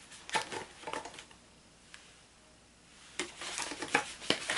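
Rustling and light tapping of craft supplies being handled on a desk: a cluster of short clicks and rustles in the first second, a quieter stretch, then more rustling and taps in the last second and a half.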